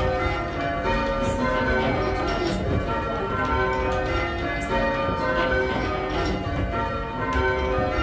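Church bells rung full-circle in call changes: a steady succession of bell strokes, one bell after another, each ringing on into the next. Heard from the ringing chamber below the bells.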